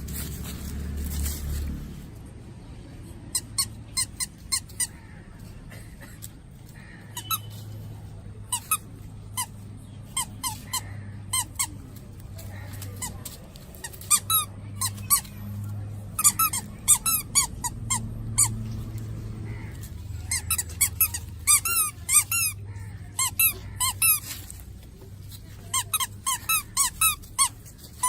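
Young stray puppies whimpering: short, high, squeaky cries that rise and fall in pitch, coming in quick runs of several with brief pauses between.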